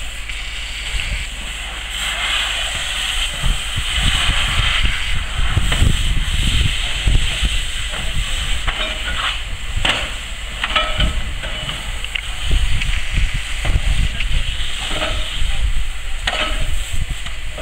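Water from a fire hose spraying onto the smouldering remains of a burnt shed, a steady hiss with steam rising from the hot debris, broken by a few short cracks and knocks. A low rumble runs underneath.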